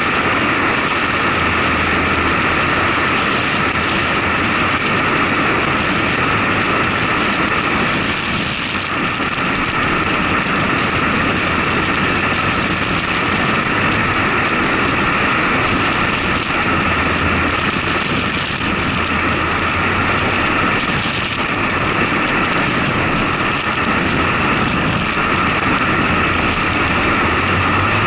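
Steady noise of a truck driving along a paved road, picked up by a camera mounted on the outside of its body: tyre and wind noise with a low engine hum that comes and goes underneath.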